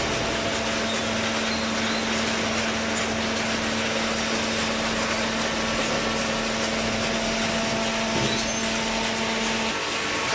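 Machinery running steadily: a constant noisy din with a steady hum that cuts off near the end.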